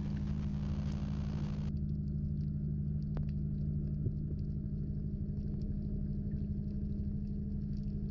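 Steady low hum of a docked ship's machinery heard underwater, several level tones droning without a break, with faint scattered clicks over it.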